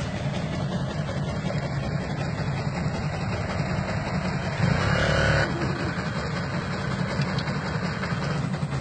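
A vehicle engine running steadily at low revs, with a rough, unsteady rumble. About five seconds in it gets louder for roughly a second, with a higher steady tone over it.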